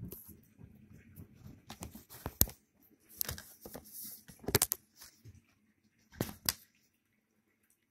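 Plastic DVD cases being handled: scraping and rustling, with several sharp plastic clacks. Quiet near the end.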